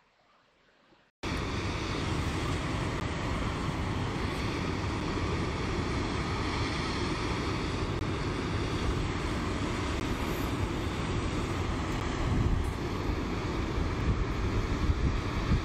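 A steady rushing noise starts abruptly about a second in: wind buffeting the microphone over the rush of a creek pouring toward a waterfall.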